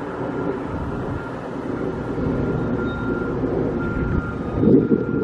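Construction vehicle's reversing alarm beeping repeatedly over a low engine rumble, with wind buffeting the microphone near the end.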